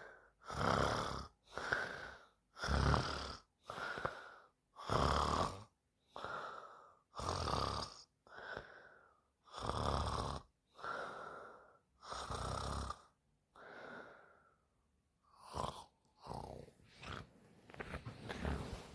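A woman snoring in her sleep, one rasping snore about every second. About fourteen seconds in, the snoring pauses and gives way to a few short, irregular breathing sounds.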